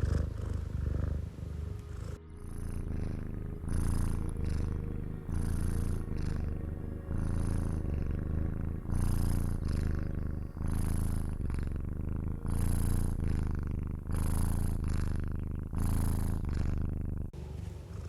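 Domestic cat purring close up: a low, steady rumble that swells and eases with each breath, about every second and a half.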